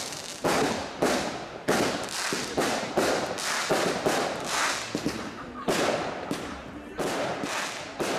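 Fireworks display: aerial shells bursting one after another, a sharp bang every half second to a second, each dying away quickly.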